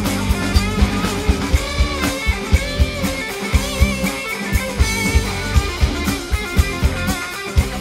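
Rock band playing an instrumental passage: electric guitars with bending, wavering notes over bass guitar and a steady drum-kit beat.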